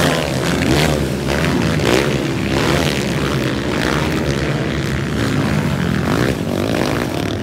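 Several motocross bikes racing over the jumps, their engines revving up and down again and again in rising and falling whines as the riders throttle on and off.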